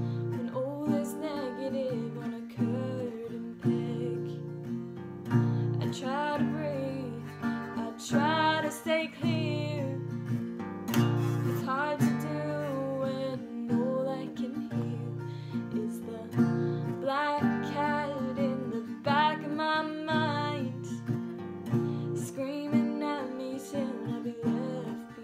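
A woman singing with her own strummed accompaniment on a small-bodied acoustic guitar.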